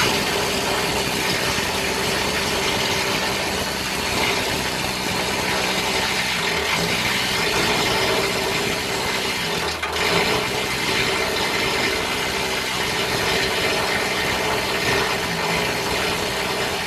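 Needle gun hammering steadily against corroded steel hull plating, chipping rust and pits back to bright metal. It briefly falters about ten seconds in.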